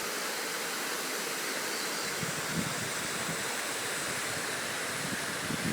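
Wind rushing steadily as an even hiss, with a few light gusts buffeting the microphone a little after two seconds in and again near the end.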